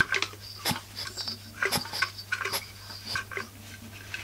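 Handling noise: irregular light clicks and knocks as a Husqvarna 44 chainsaw is moved about and set down on the work surface.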